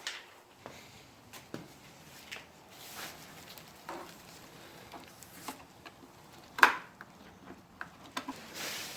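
Scattered light clicks and knocks of handling, with one sharp, much louder knock about two-thirds of the way through and a short hiss near the end.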